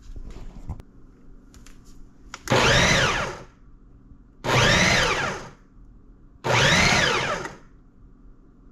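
Ninja food processor chopping raw fish fillets into a paste. It runs in three bursts of about a second each, two seconds apart, the motor whining up and winding down each time, after a few small clicks at the controls.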